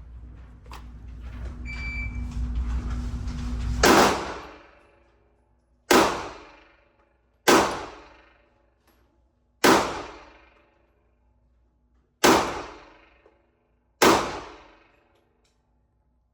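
Six loud, sharp bangs spaced one to two and a half seconds apart, each ringing out for about a second, after a low rumble that swells over the first four seconds.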